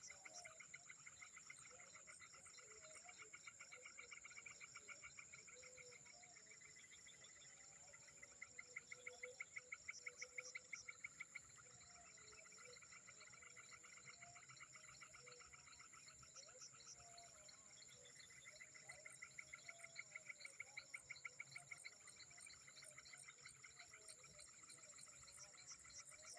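Faint chorus of frogs and insects: a steady high insect whine under rapid pulsing frog calls, which swell in bouts about eight and nineteen seconds in.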